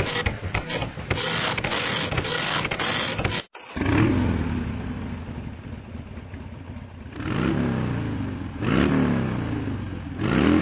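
Desk printer running as it prints out a page for about three and a half seconds. After a short break, an ATV engine starts and revs four times, rising in pitch each time.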